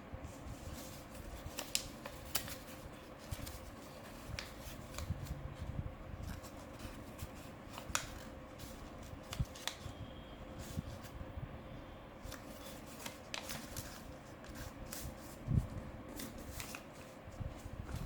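Origami paper being folded and creased by hand: soft rustling with scattered sharp crackles of the sheet.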